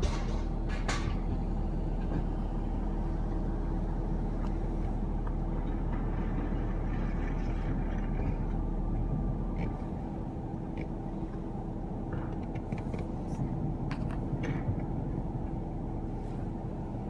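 Garbage truck's diesel engine running with a steady low drone and a few light knocks, easing off slightly about ten seconds in.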